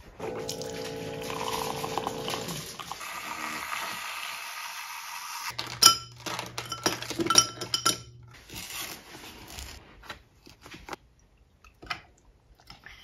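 Kitchen drink-making sounds: a spoon working in a glass measuring cup as matcha is mixed, then ice cubes clinking into a tall glass, loudest about six and seven seconds in. Near the end, strawberry milk is poured over the ice.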